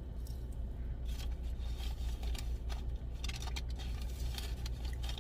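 Short crinkling and clicking noises of fast food being handled and eaten, over a steady low hum from the car.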